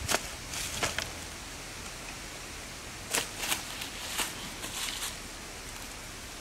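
Brief rustling scrapes in dry leaves and loose soil as a person steps about and handles the ground, coming in short separate bursts over a steady background hiss.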